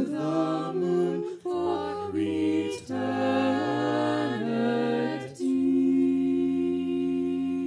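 A small group of voices singing a cappella in close harmony, closing a phrase on one long held chord from about two-thirds of the way in.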